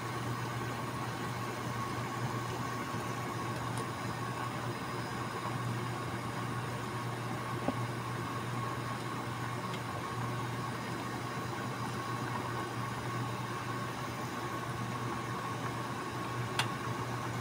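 Tocino simmering in water in a stainless steel pan, a steady bubbling hiss over a low hum, with two light clicks of the nylon spatula against the pan, one midway and one near the end.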